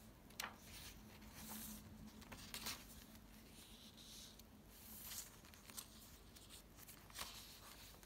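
Faint rustling of paper pages being turned and smoothed flat in a handmade junk journal, a handful of short swishes and light ticks spread through.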